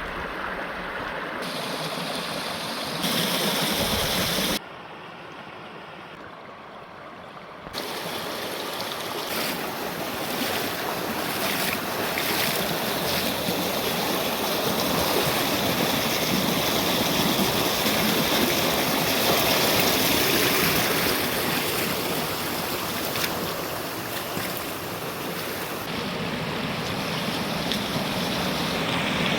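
Steady rush of falling and flowing water from a waterfall, with no distinct pattern. The level jumps up about three seconds in, drops sharply a moment later and comes back about eight seconds in.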